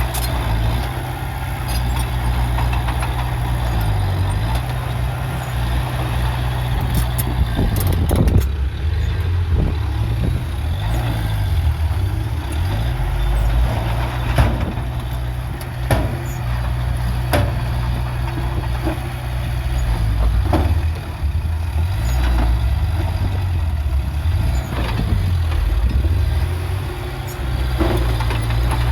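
Heavy diesel earthmoving machinery running at work. The low engine note rises and falls several times, with scattered sharp metallic clanks.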